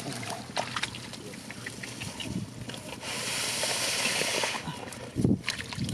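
Shallow muddy water sloshing and splashing, with scattered small clicks and a rushing hiss lasting over a second about three seconds in.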